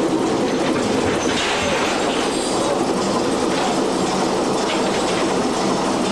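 Fishing boat's engine running steadily in its engine room, loud and even.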